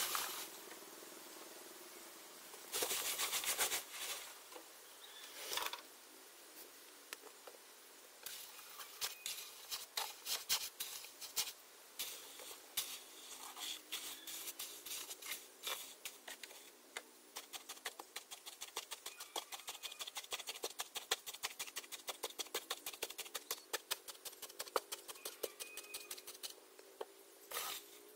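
Damp sand-cement mix being worked into a wooden batako block mould with a trowel: a couple of longer rushes of scraping in the first seconds, then quick scraping and patting strokes, several a second, from about eight seconds in as the mix is spread level.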